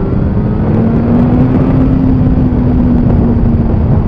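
Yamaha FZ8 inline-four engine pulling at road speed through a MIVV Strom GP exhaust with its baffle removed; the engine note rises a little, then holds and eases, under heavy wind noise on the microphone.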